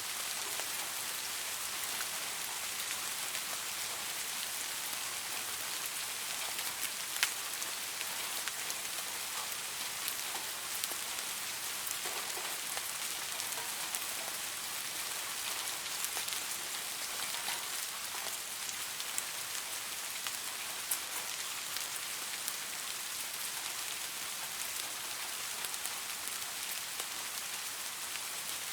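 Steady rain falling on leaves, an even hiss with scattered close drops ticking now and then, one sharper drop about seven seconds in.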